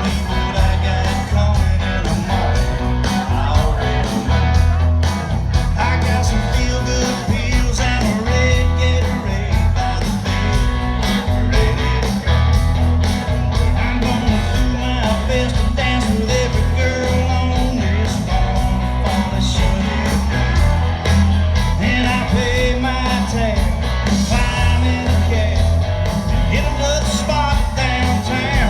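Amplified live band playing an up-tempo country-rock song, with a lead singer over a steady, heavy bass and drum beat.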